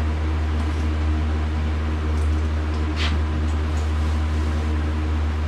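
Steady low hum of a motor running, with a short hiss about three seconds in.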